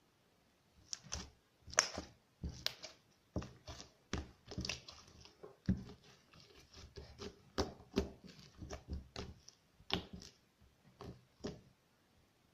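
Crunchy slime being squeezed and kneaded by hand, giving irregular sharp crackles and pops, a couple every second.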